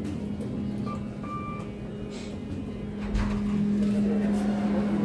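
Passenger lift car: two short electronic beeps from the controls about a second in, over a steady low hum that gets louder with a low thud about three seconds in as the car sets off.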